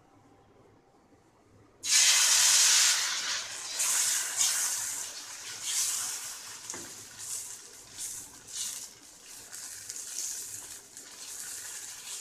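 Dosa batter sizzling on a hot dosa griddle: a loud hiss starts suddenly about two seconds in as the batter hits the pan, then slowly fades with uneven swells as the ladle spreads it.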